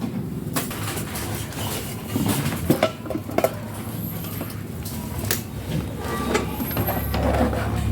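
Scattered sharp clicks and knocks of parts and wiring being handled inside an opened rice cooker, over a low rumble that grows louder near the end.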